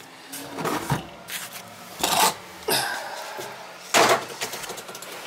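Several short rubbing and scraping noises, as things are handled close to the microphone. The loudest scrape comes about four seconds in.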